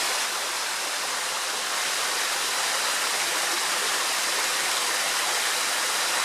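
Small waterfall splashing steadily into its pool, a constant rushing hiss of falling water.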